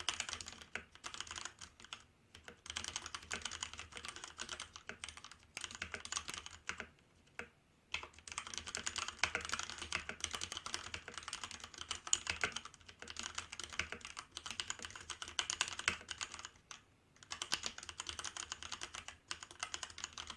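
Fast typing on a Hansung GO187 mechanical keyboard with Kailh Red linear switches: quick runs of key clicks, broken now and then by short pauses.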